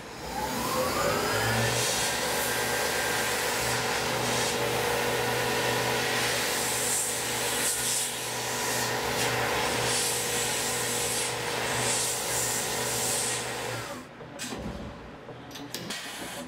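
CNC mill spindle whining up to speed, then running steadily while a small end mill cuts metal under a hissing two-nozzle mist coolant. About fourteen seconds in, the spindle winds down.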